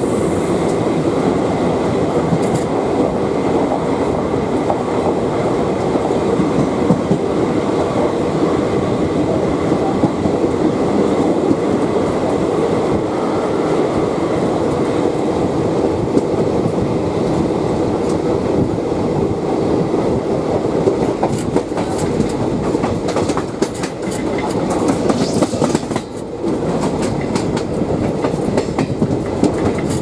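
Container freight train's loaded flat wagons rolling past on the adjacent track, a steady rumble with the clickety-clack of wheels over rail joints. The last vehicle, the guard's brake van, passes about halfway through, and rail running noise carries on after it.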